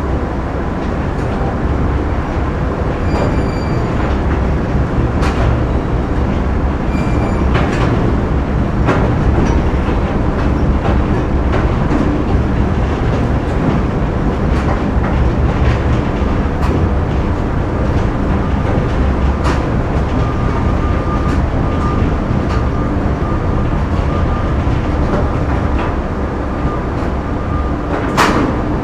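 Factory ambience: heavy machinery running with a steady low rumble, scattered knocks and clanks throughout. A faint steady whine joins about two-thirds of the way through, and one loud knock stands out near the end.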